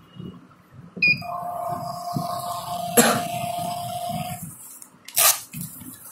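Handheld cable TV billing machine's built-in receipt printer: a key beep, then the printer running with a steady whine for about three seconds as the bill receipt feeds out, followed about five seconds in by a short, loud rasp as the printed receipt is torn off.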